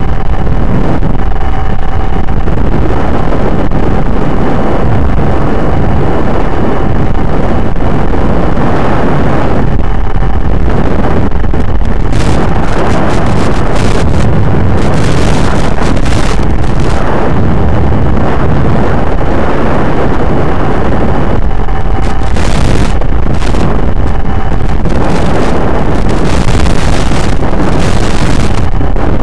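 Loud, distorted wind rush on an RC FPV plane's onboard microphone, with its electric motor and propeller droning underneath. A thin steady whine runs through the first ten seconds or so and returns briefly later on.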